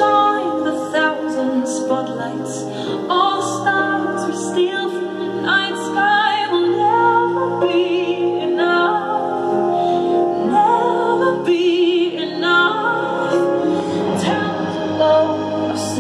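Music: a woman singing long held notes with a wide vibrato over sustained accompaniment.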